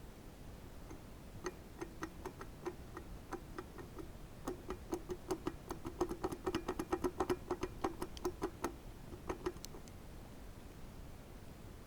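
Abnormal noise from a Harley-Davidson Sportster 1200S crank: a train of sharp clicking knocks, sparse at first, then quickening to several a second, then tapering off and stopping.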